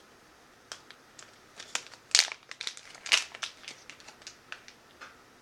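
Packaging of a wax tart crinkling and crackling in irregular bursts as it is handled and opened, loudest about two and three seconds in.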